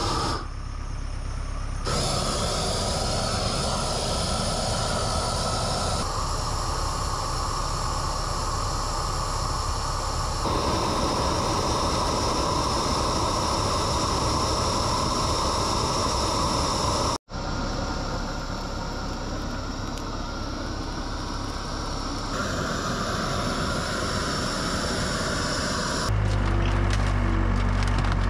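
Yanmar C25R crawler dumper's three-cylinder diesel engine running while working, heard in several cut-together stretches. The sound drops out for an instant about two-thirds through, and near the end the engine note turns deeper and steadier.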